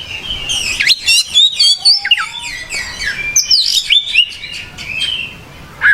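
Oriental magpie-robin singing in full voice: a fast, varied run of loud whistles, slurred rising and falling notes and chirps, breaking off near the end.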